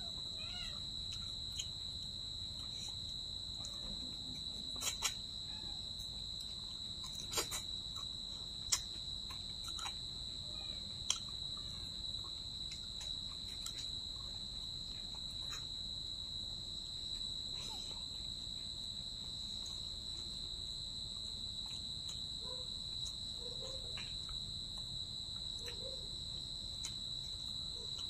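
Steady high-pitched trilling of insects, with a handful of sharp clicks between about five and eleven seconds in.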